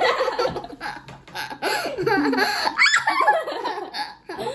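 Young children laughing and giggling together.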